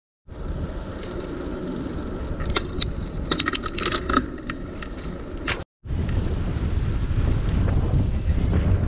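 Wind rushing over the microphone of a camera riding along on a bicycle, with a cluster of sharp metallic clicks and rattles in the first half. The sound drops out for a moment, then comes back as a louder low wind rush.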